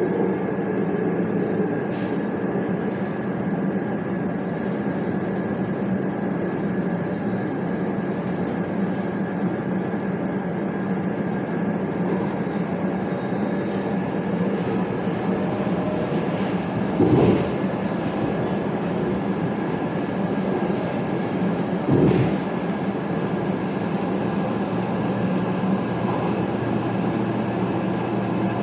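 Steady rolling rumble and hum heard from inside a moving electric commuter railcar, with a faint steady whine above it. Twice past the middle, about five seconds apart, comes a brief louder thump.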